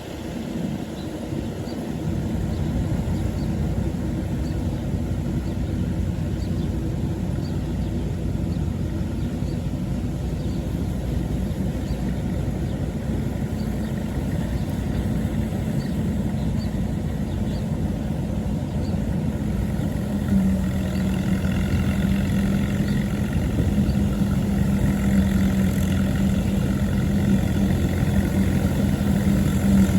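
Allis-Chalmers WD45 tractor engine running steadily with the All Crop 72 combine's machinery turning, a continuous low hum. A steady drone becomes noticeably stronger about twenty seconds in.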